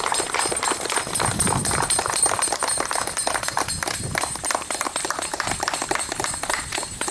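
A crowd applauding with rapid, dense clapping, while small bells ring steadily and high-pitched over it. The applause and bells tail off just after the reading of the Bill of Rights ends.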